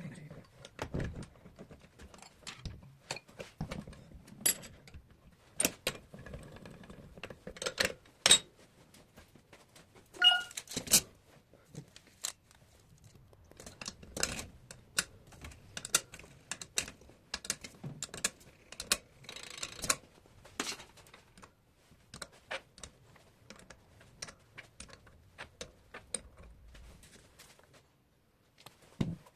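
Hand tools and metal parts clicking and clinking at an irregular pace, with one short ringing metal clink about ten seconds in.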